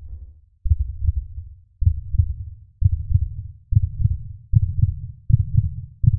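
Heartbeat sound effect: low double thumps, lub-dub, repeating and gradually quickening from about one beat a second to a little faster.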